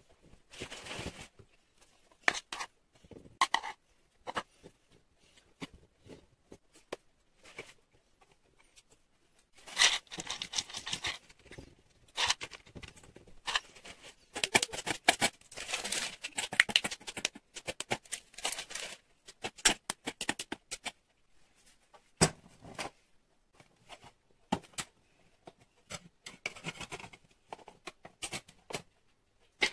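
Kitchen handling sounds: a spoon scraping and pressing a crumbly nut base into a springform pan, then peanuts being picked up and set down on it. Irregular scrapes, rustles and small clicks, with longer stretches of busy rustling in the middle and one sharp click about two-thirds of the way through.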